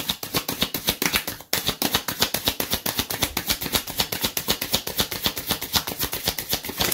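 Tarot deck being shuffled overhand: a fast, even run of card-on-card slaps, about ten a second, with a short break about one and a half seconds in.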